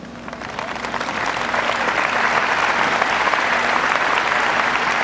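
Audience applause, swelling over the first second or two and then holding steady.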